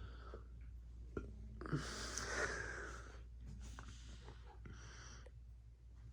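A person breathing out near the microphone about two seconds in, with a few smaller breaths later, over a steady low hum.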